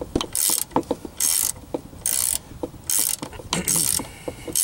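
17 mm ratcheting wrench clicking in short runs on the back-swings, about five strokes a little under a second apart, as the top nut of a strut assembly is loosened with an Allen wrench holding the shaft.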